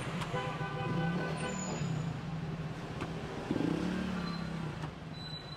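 Street traffic with a vehicle engine running steadily nearby, swelling about three and a half seconds in, with a few faint knocks over it.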